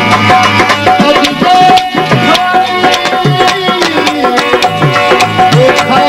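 Sindhi folk music, instrumental: a dholak hand drum plays a quick rhythm of sharp slaps and low bass strokes that drop in pitch, over a steady held high note.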